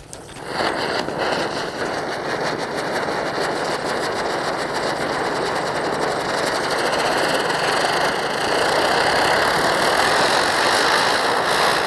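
Ground spinner firework (chakri) spinning on the ground, a loud continuous hissing rush of burning sparks that swells within the first second and then holds steady, with a faint wavering whistle through it.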